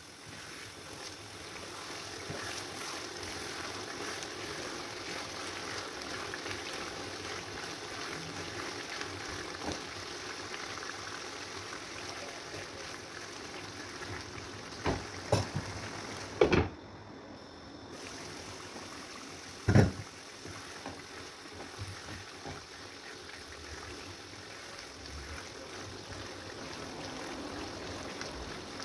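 Steady watery hiss of soup cooking in a pot, with a few sharp knocks of a utensil on the pot in the second half.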